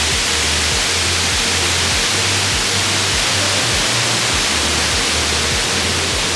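Steady rush of a waterfall's cascading water, with background music's low bass notes changing in a regular pattern underneath.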